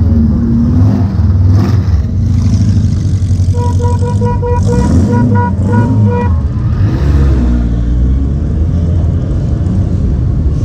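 Motorcycles and a trike ride slowly past with their engines running. About a third of the way in, a horn sounds a rapid string of short toots for a couple of seconds.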